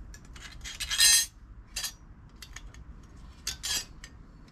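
Small hard parts being handled: a string of clinks and scrapes. The loudest is a short scrape about a second in, with a couple more around three and a half seconds.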